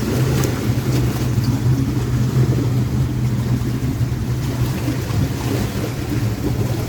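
Strong wind buffeting the microphone as a loud, steady low rumble that rises and falls in gusts, with lake water lapping faintly under it.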